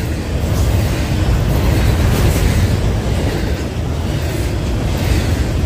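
Double-stack intermodal container train passing on the adjacent track: a steady rumble of wheels and well cars on the rails.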